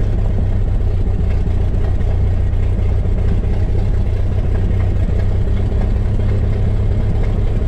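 Carbureted single-engine piston airplane engine and propeller running at low taxi power, a steady, even drone.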